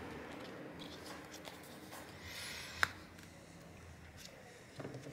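Faint rustling and light handling of a sheet of thermal pad, with one sharp click about three seconds in.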